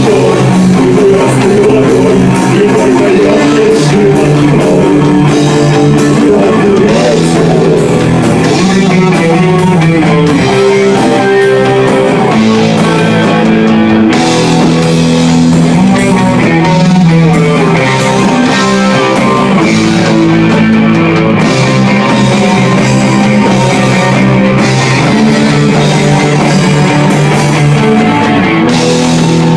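Instrumental rock passage: guitars playing sustained chords over a drum kit.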